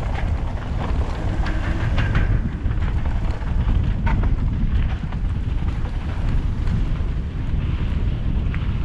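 Mountain bike riding down a dirt flow trail: wind buffeting the microphone and a steady rumble of the bike rolling, with a few sharp clicks and rattles from the bike.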